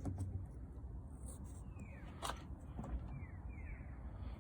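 Faint handling of small door-handle parts, with one sharp click about two seconds in and a few faint short high chirps that fall in pitch.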